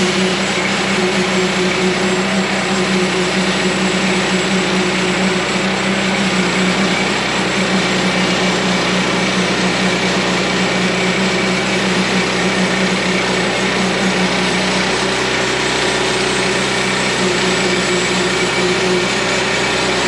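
Woodland Mills portable band sawmill running steadily under load, its gas engine driving the band blade through a log as the mill head is pushed along the cut.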